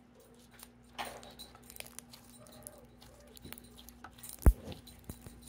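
Slime with beads being squished and stretched by hand: scattered small sticky clicks and crackles, with one dull thump about four and a half seconds in.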